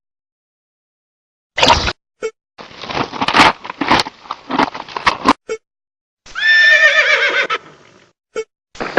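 Horse sounds: a run of irregular hoof clops, then a whinny about six seconds in, a call of a little over a second that sinks in pitch toward its end.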